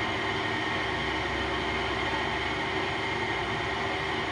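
Clausing 8540 horizontal milling machine running under power: a steady hum from its motor and spindle drive, with several held tones.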